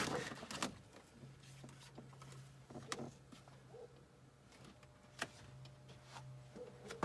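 A few scattered light clicks and taps from handling parts at an open car door, over a faint steady low hum.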